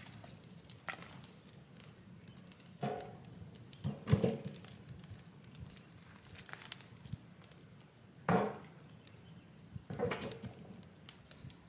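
Firewood being handled and fed into a steel burn barrel: scattered knocks and clunks of sticks being picked up and dropped in, with the loudest about four seconds in and again about eight seconds in.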